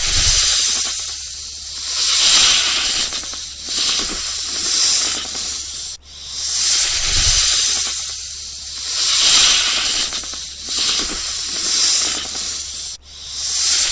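Snake hissing: long breathy hisses that swell and fade every second or two. The sequence cuts off sharply about six seconds in, then starts over as a loop.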